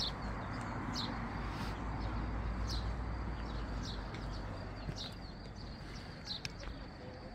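Outdoor ambience: a steady low rumble and hiss, with a small bird chirping, short high calls about once a second.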